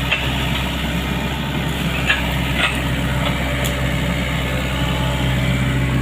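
Sany excavator's diesel engine running steadily, with a couple of short knocks a little past two seconds in.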